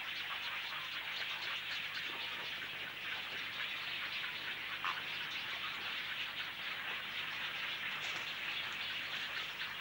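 Many small splashes on a muddy river surface as a flock of birds dives and skims the water, heard as a dense, steady patter like heavy rain on water.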